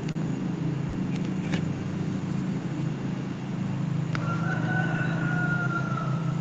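Steady low hum with a few sharp clicks, and a little over four seconds in a single long high call, held about two seconds and falling slightly in pitch.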